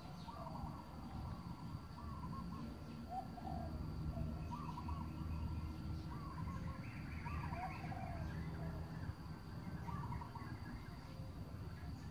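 Birds calling over and over in short warbling phrases, with a burst of higher twittering about halfway through, over a low steady rumble.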